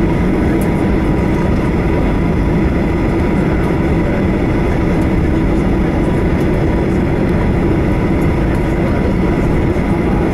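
Boeing 737-800 cabin noise while taxiing: the CFM56-7B turbofan engines running at low power, a steady rumble with a few faint, even high tones over it.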